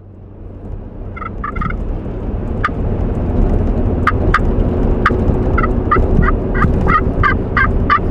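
Turkey pot call worked by hand, imitating a hen: a few sharp clucks, then a run of yelps at about three a second from roughly five and a half seconds in. Under it runs the steady road rumble of a moving pickup's cab.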